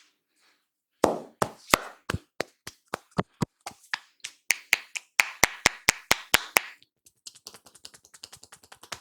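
Sharp slaps and snaps from an Indian head massage, a steady run of about three to four loud strikes a second, then near the end a quicker patter of lighter taps.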